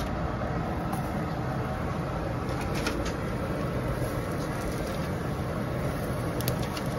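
Steady low background hum. A few faint, brief ticks come as raw gyoza are set down in an oiled nonstick frying pan.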